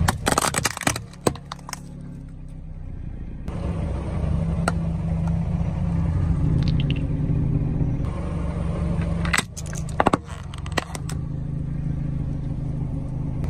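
A car engine running low and steady as the tyre rolls slowly over small plastic objects, with sharp cracks and crunches as they break under it: a cluster in the first couple of seconds and another about nine to eleven seconds in.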